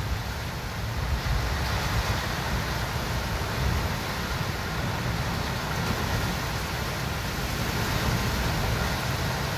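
Steady thunderstorm noise: wind blowing hard across the microphone in a low, flickering rumble, with a steady hiss of rain and wind in the trees over it.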